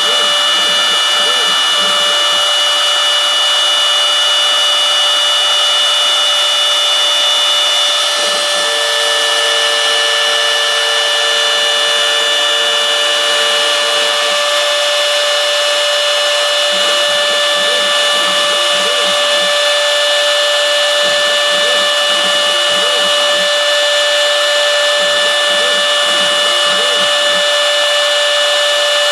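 The spindle of a homebuilt CNC mill runs steadily as its bit mills hexagonal pockets into florist foam. There is a steady high whine, with low rumbling that comes and goes.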